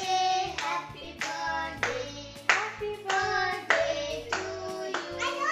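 A birthday song being sung, with hands clapping along in a steady beat.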